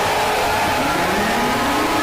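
Emergency alert system tone: a harsh, loud noisy drone with steady tones over it, and a low tone that glides upward in pitch starting about a third of the way in.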